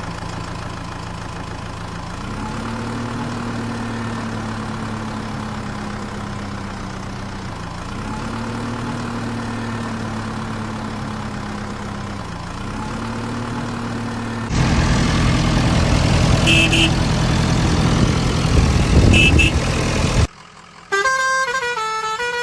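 Vehicle engine running steadily, its pitch rising and falling a few times, then a louder rumble from about two-thirds of the way in with two pairs of short horn beeps; a short tune starts near the end.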